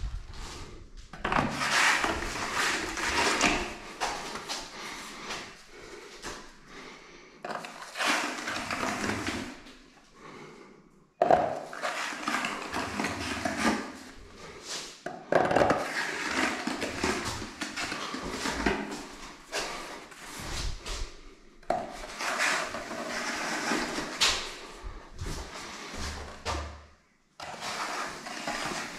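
Wide skimming blade scraping a thick coat of wet gypsum skim plaster across a wall, in a series of long strokes a few seconds each with brief gaps between.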